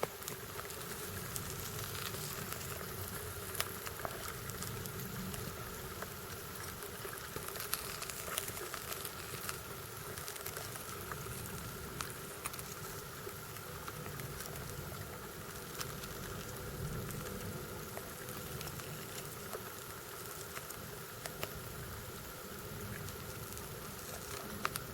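Dense, steady crackling and pattering of many tiny ticks, like an ant colony swarming over the dry litter of its nest, with a faint steady drone underneath.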